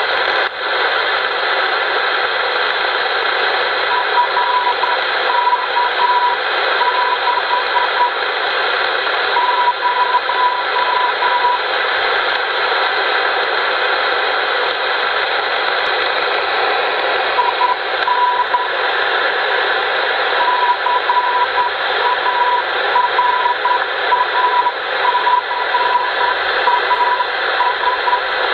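A CW beacon sending Morse code, received on a 10-metre HR-2510 transceiver through a 6-metre transverter. It is heard as a single steady tone keyed in dots and dashes over a loud hiss of receiver noise. The tone comes and goes, dropping out for several seconds around the middle. It is the YV5OK beacon on 50.076 MHz.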